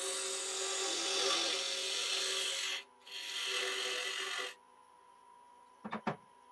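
Skew chisel cutting into spinning wet cherry wood on a lathe: two scraping, hissing cuts, the first about three seconds long and the second shorter after a brief pause. Then only the lathe's steady whine is left, with a couple of sharp clicks near the end.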